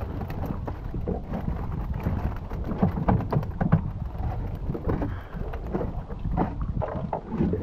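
Wind rumbling on the microphone over an open boat, with irregular knocks and scrapes as a chicken-wire fish trap is hauled over the boat's side.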